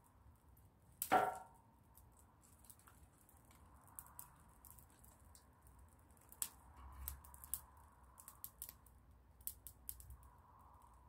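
Small twig fire crackling, with scattered sharp snaps and pops and one louder crack about a second in.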